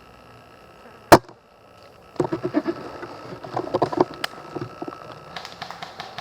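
Airsoft gunfire: one sharp crack about a second in, then short rapid bursts of about a dozen shots a second, over a steady faint hum.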